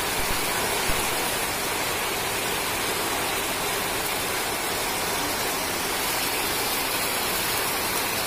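Heavy rain pouring down onto a corrugated metal roof and tarpaulin, a steady dense wash of noise.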